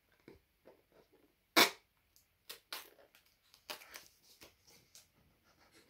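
Fingers picking at and tearing the paper seal sticker on a smartphone's cardboard box: a string of short scratches and rustles, with one sharp snap about a second and a half in.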